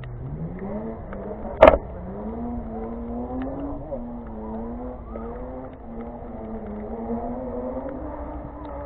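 Go-kart engine running, its pitch climbing as it accelerates, dropping back and climbing again. About two seconds in there is one short, loud thump.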